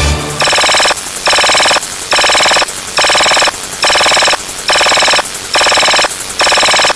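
Electronic ringtone-like sound effect: a buzzy synthesized ring repeating in short bursts about once a second, with the tail of a deep low hit fading just at the start.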